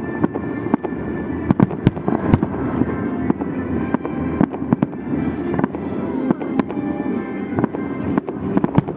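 Fireworks salute: a rapid, irregular string of bangs and cracks from bursting shells, several each second, over a continuous rumble of launches and bursts.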